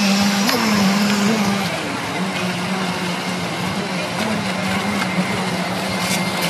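Engine of a radio-controlled model cabin cruiser running steadily as a buzzing hum that wavers slightly in pitch, over a constant hiss of splashing water.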